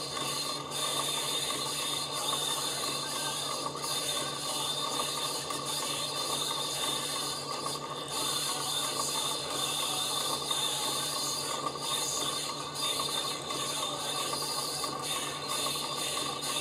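Stepper motor driving 3D-printed reduction gears on a homemade turntable running at 45 rpm: a steady whine over a gear rattle. Any playback from the record is buried under the mechanism noise.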